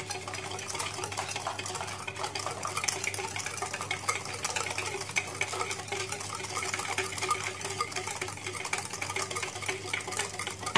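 Wire balloon whisk beating a still-runny mix of instant coffee, sugar and hot water in a plastic bowl, to whip it into dalgona foam. The wires make a rapid, steady clicking and scraping against the bowl.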